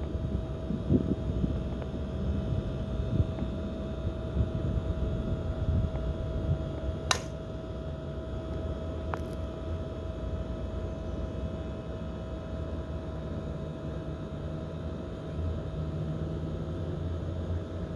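A single sharp crack of an Axe softball bat hitting a softball, about seven seconds in, over a steady low rumble of wind on the microphone.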